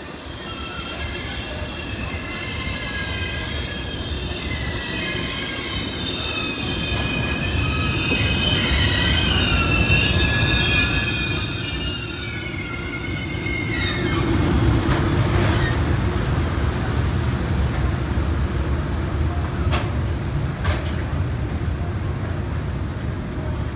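Freight train hauled by an EH500 electric locomotive rolling through the station, louder as it approaches. High, wavering squealing tones sound while the locomotive passes, then stop after about fourteen seconds. A steady low rumble of tank wagons follows, with a few sharp clicks of wheels over rail joints.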